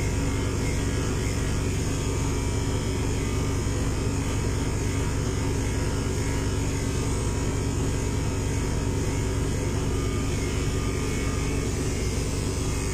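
Electric pet hair clipper running with a steady, even hum while grooming a white Persian cat.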